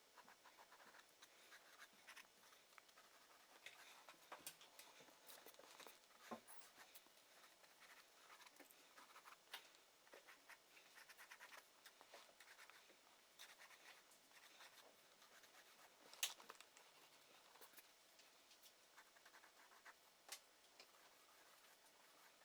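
Faint drawing strokes on paper, irregular scratching with a few light taps.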